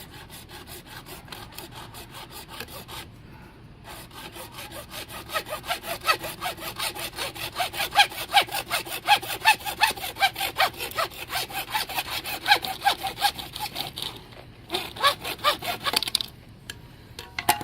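Hacksaw cutting through 3/4-inch PVC pipe with steady back-and-forth strokes. The strokes grow louder a few seconds in, pause briefly twice, and stop near the end as the cut is finished.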